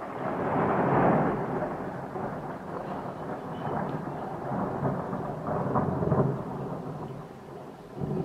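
A thunderclap that breaks suddenly and rolls on in a long rumble, swelling again about six seconds in before fading, over falling rain.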